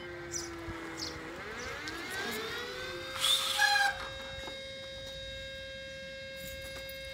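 Alarm siren sounding: a steady wailing tone that sinks a little, glides up about two seconds in and then holds at the higher pitch. A brief louder noise cuts across it about three seconds in.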